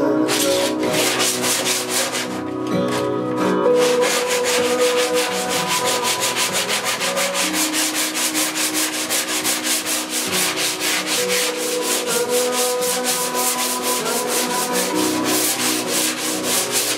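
Hand sanding block with sandpaper rubbed back and forth along the plywood-and-pine edge (rail) of a hollow wooden surfboard, scratching in quick, even strokes.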